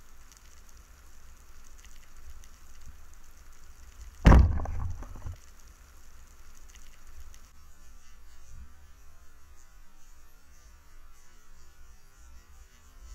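Underwater ambience recorded in a diving camera housing: a low steady rumble with faint crackling. One loud, sudden knock about four seconds in dies away over about a second.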